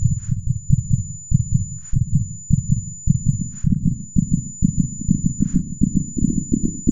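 Heartbeat sound effect beating fast, about three or four beats a second and quickening toward the end, under a steady high-pitched ringing tone.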